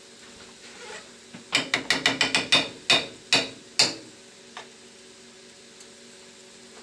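A cooking utensil clattering against a frying pan while stirring: about ten sharp knocks, quick at first and then slowing, over about two and a half seconds.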